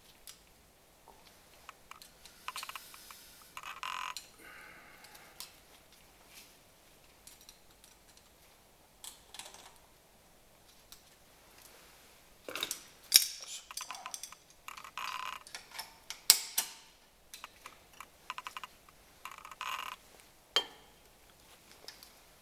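Small metal tools and brake parts being handled: irregular clicks, clinks and short rattles, with two sharper metallic knocks about halfway through.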